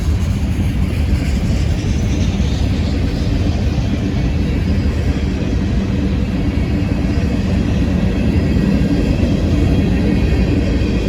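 Freight train cars rolling past, a steady rumble of wheels on the rails.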